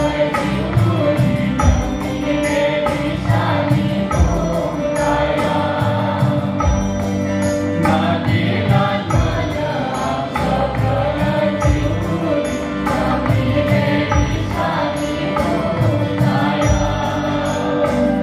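Mixed choir of men and women singing a worship song through microphones and a PA, over instrumental accompaniment with a regular beat.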